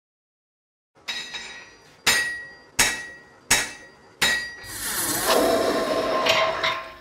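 Five ringing hammer blows on an anvil, the first two a second apart and the rest a little quicker, each ring fading before the next strike. A sustained rushing, ringing sound follows for the last two seconds.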